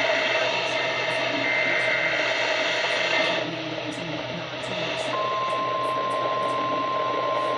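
Hiss and static from a weather radio receiver. About five seconds in, the steady single-pitch NOAA Weather Radio warning alarm tone, at about 1050 Hz, starts, sounded as part of the required weekly test of the warning system.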